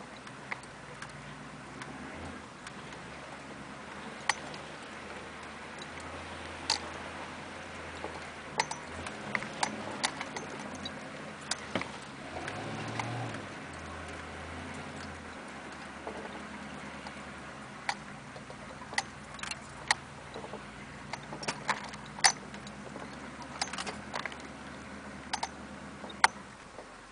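The GMC Suburban's diesel engine running low and steady inside the cab as the truck creeps along, a little louder for a while in the middle. Irregular sharp clicks and knocks are scattered over it.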